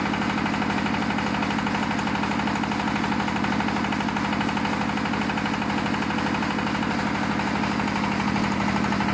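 Yanmar TF120M single-cylinder diesel engine running steadily, belt-driving a generator head, its firing pulses even and rapid at an unchanging speed.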